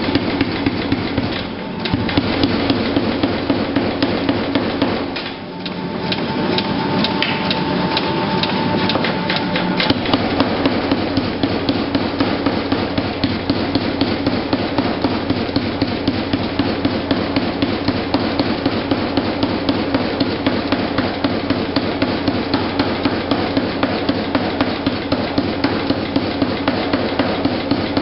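Blacksmith's hand hammer striking red-hot steel on an anvil in a steady rhythm of about three blows a second, flattening the glowing end of the bar. There are two short breaks in the hammering within the first six seconds.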